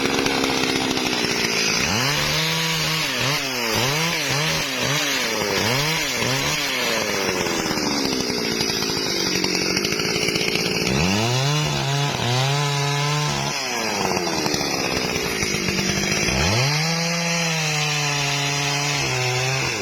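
Chainsaw engine revving. About two seconds in it gives a string of quick throttle blips, its pitch rising and falling several times. Then come two longer runs held at high revs, one about halfway through and one near the end, each dropping back afterwards.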